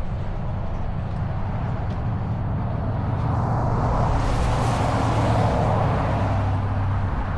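Road traffic: a steady low rumble, with a passing vehicle's tyre hiss swelling about four seconds in and fading again.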